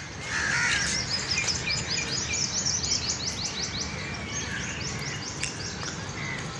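Small birds chirping: a fast run of high, quickly repeated falling notes for the first few seconds, then scattered calls, over a steady low background rumble.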